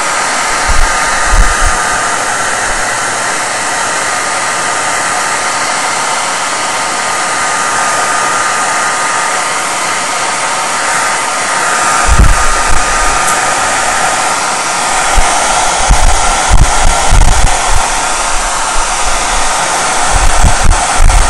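Heat gun blowing steadily with a faint whine, warming the phone's back plate to soften the adhesive under the glass. Low thumps come in from about halfway on.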